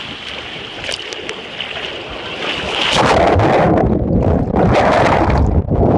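Water rushing along a water slide for about three seconds, then a sudden loud splash into the pool, followed by muffled underwater churning and bubbling heard from below the surface.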